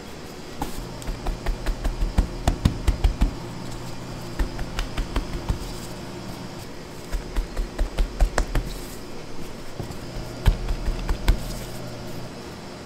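Four runs of quick soft thumps, several a second, over a steady low machine hum.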